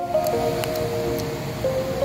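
Background music, a melody of held notes changing every half second or so, laid over a steady rush of outdoor noise with a few faint clicks.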